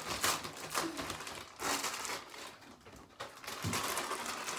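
Plastic balloon packaging crinkling and rustling in irregular bursts as packs are torn open by hand and with teeth.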